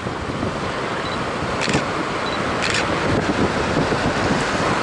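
Wind buffeting the microphone over surf washing onto the beach, with two short clicks about a second apart.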